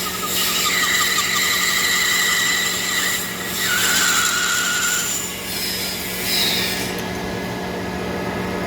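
Machine tool running on PEEK rod, with a steady motor hum under a high cutting whine that steps to a new pitch a few times as the cut goes on.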